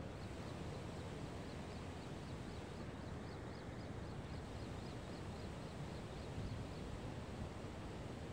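Steady low wind rumble buffeting the microphone outdoors. A faint high chirp repeats about four times a second through the first five seconds or so.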